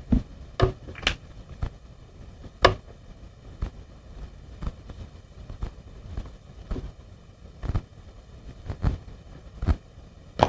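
Irregular soft taps and knocks, roughly one a second, from hands working Play-Doh and an orange marker on a table top.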